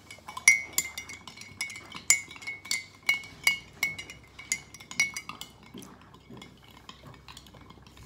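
Metal spoon stirring a liquid in a cut-glass crystal bowl, clinking against the glass with a ringing tone two or three times a second. The clinks grow faint after about five seconds.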